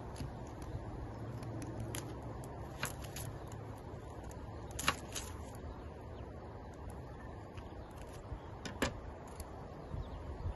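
Kitchen knife cutting on a wooden cutting board: scattered sharp taps, some in quick pairs, over a low steady background.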